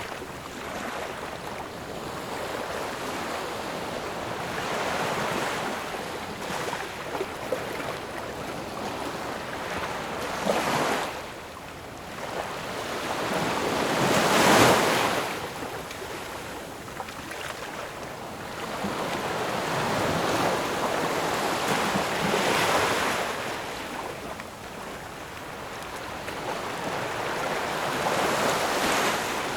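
Ocean waves breaking and washing in, rising and falling in slow surges every few seconds, with the loudest wave about halfway through.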